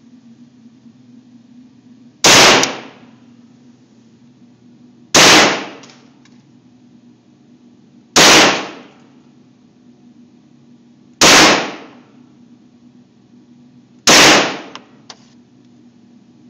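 Beretta Cx4 Storm 9mm carbine fired five times in slow single shots, about three seconds apart, each shot echoing briefly in an indoor range. A couple of light clicks follow some of the shots, over a steady low hum.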